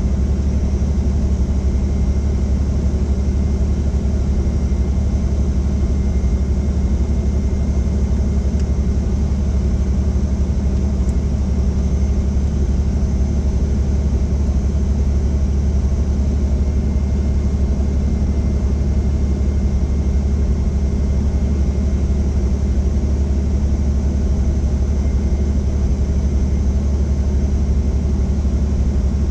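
Helicopter engine and rotor running, a loud, steady low drone with a faint thin high whine over it.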